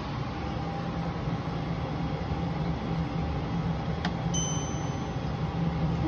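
Navien NCB combi boiler firing, its combustion blower and gas burner making a steady hum as it modulates up to deliver more heat. There is a faint click about four seconds in.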